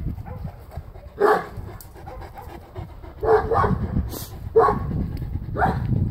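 A large livestock guardian dog barking, about five single barks spaced irregularly, two of them close together in the middle.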